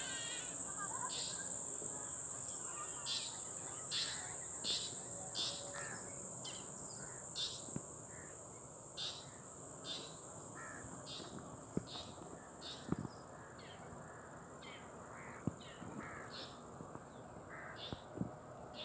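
Insects trilling steadily at a high pitch, with short bird calls repeating about once or twice a second over it. A few faint taps come in the second half.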